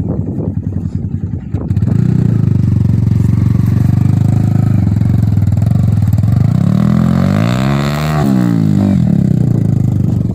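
Yamaha R15 V3's 155 cc single-cylinder engine running close by. It gets louder about two seconds in, then revs up to a peak about eight seconds in and drops back.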